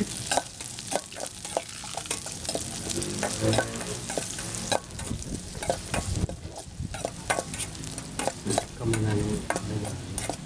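Chopped shallots, chilli and tomato frying in oil in a pan, sizzling while being stirred, with the stirring utensil repeatedly clicking and scraping against the pan.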